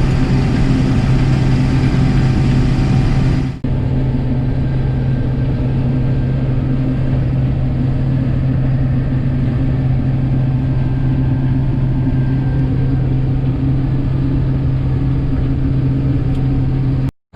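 Combine harvester's engine running steadily with a constant low hum, briefly cut off about three and a half seconds in and again near the end.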